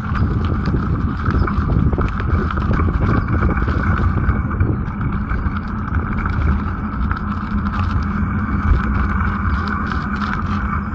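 Bicycle being ridden: wind rumbling on the microphone and tyre noise, with a continual light rattling and clicking from the bike.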